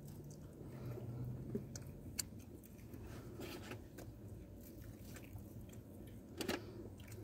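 Faint chewing and biting of pizza, with a few small clicks and a short mouth sound near the end. A low steady hum sits under the first couple of seconds.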